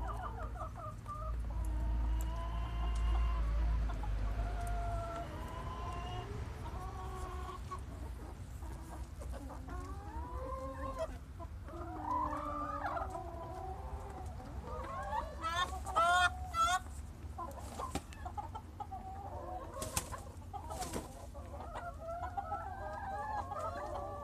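Flock of hens clucking and calling over one another, with a louder burst of calls a little past the middle.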